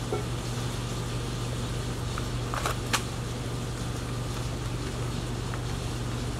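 Steady low room hum, with a few short clicks about two and a half to three seconds in, the last one the sharpest, from a boning knife and gloved hands working raw pork off the bone.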